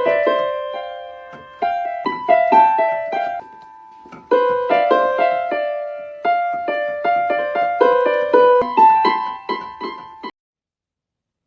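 Solo piano melody of struck notes that ring and fade, pausing briefly partway through and cutting off suddenly about ten seconds in.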